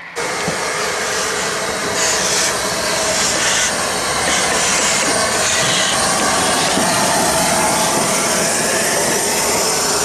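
Rebuilt Southern Railway Merchant Navy class steam locomotive No. 35006 hissing steam, a loud steady rush with stronger puffs about once a second from about two to six seconds in.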